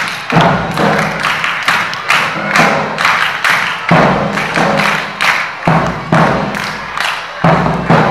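Youth wind band of saxophones, other winds and percussion playing a piece, driven by heavy bass drum strokes about every two seconds with quicker percussion hits between.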